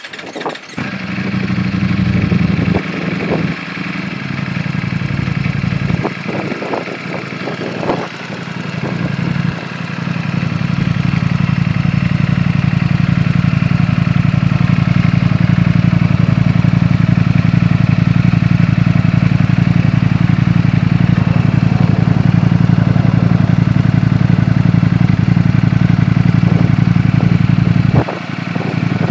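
Ducati Panigale V4 sportbike engine starting up about half a second in. It runs unevenly for the first several seconds, then settles into a steady idle.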